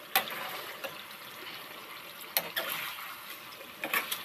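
Beef curry sizzling and bubbling in a steel kadai on a gas flame as its juices cook down, with a metal spoon stirring and knocking against the pan several times.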